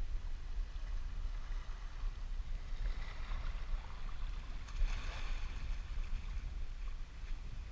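Wind buffeting the camera's microphone in a steady low rumble, over water lapping in the shallows, with a brief louder rush of noise about five seconds in.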